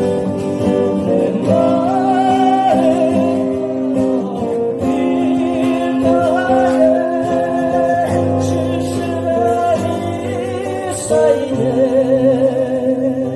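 Acoustic guitar accompaniment with a voice singing a melody of long, held notes with vibrato.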